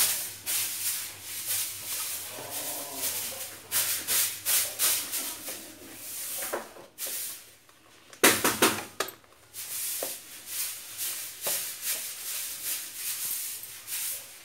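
Metal ladle stirring hot milk in a steel saucepan on a gas stove, scraping against the pan in irregular scratchy, hissing bursts, loudest about eight seconds in.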